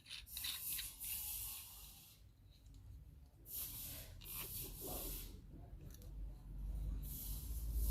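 Rustling and scraping as ring light and tripod parts are handled and fitted together, in several soft hissy spells with short pauses between them.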